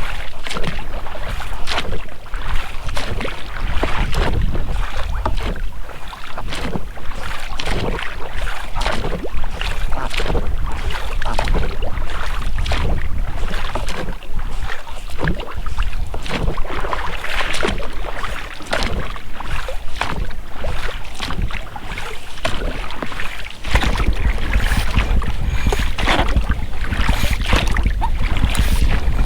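Oars of an inflatable rowing boat dipping and splashing in river water, stroke after stroke, with the knock of the rubber rowlocks. Low wind rumble on the microphone comes up near the end.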